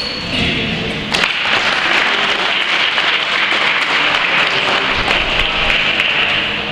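Audience applauding in a gymnasium, steady clapping throughout, with one sharp click about a second in.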